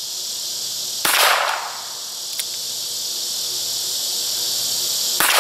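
Two handgun shots about four seconds apart, each a sharp crack that rings off in echo across the open field. A steady high drone of insects runs underneath.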